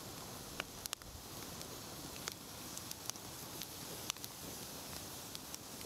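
Wood fire crackling, with scattered sharp pops and snaps over a steady hiss.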